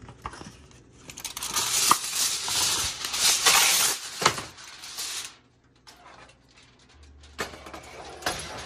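Aluminum foil crinkling and crackling as sheets are handled and pressed over a roasting pan. The crinkling is loud for a few seconds, with a couple of sharper crackles, then softer near the end.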